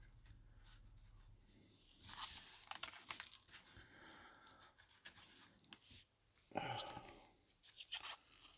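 Foil trading-card pack wrapper crinkling as gloved hands handle it, in a few short bursts with light clicks between.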